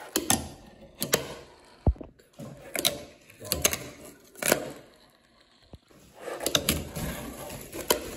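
Fingerboard being rolled and flicked across a wooden table and a ramp: the small wheels roll with a rumbling hiss, broken by repeated sharp clacks as the board pops and lands.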